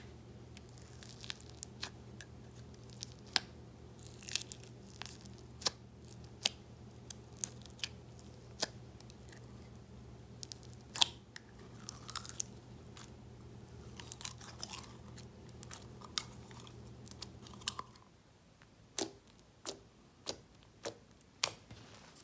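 Peachybbies Salted Caramel Cookie Crunch foam slime, thick with small foam beads, being poked, pulled and squeezed by hand: irregular crisp pops and crackles, with a few evenly spaced pops near the end. A low steady hum lies behind them and drops out about four seconds before the end.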